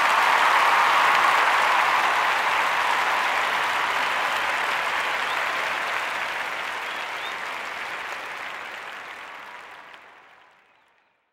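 Applause, loud at first and fading out over the last few seconds.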